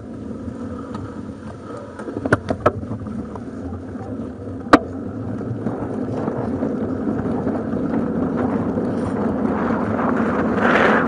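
Bicycle tyres humming on the path as the bike rolls, growing gradually louder as speed builds. A few sharp clicks come between two and three seconds in, and one louder click comes near five seconds in.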